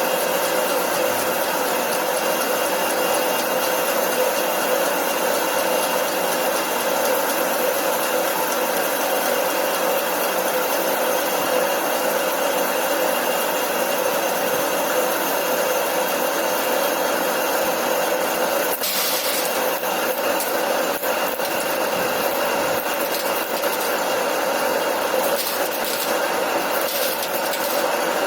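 Lathe running steadily while turning a workpiece, a constant machine hum and whine under the scraping noise of the cut, with a short hiss about two-thirds of the way through.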